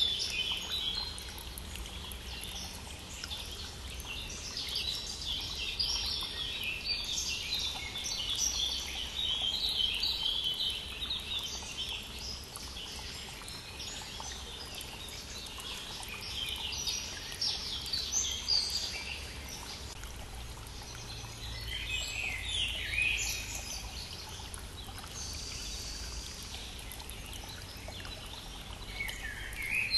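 Several songbirds chirping and trilling in spring, over the steady rushing of a small brook.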